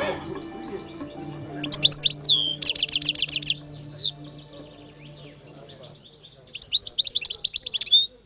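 European goldfinch singing: a twittering phrase of quick sweeping high notes about two seconds in, with a fast run of evenly repeated notes, and a second twittering phrase near the end.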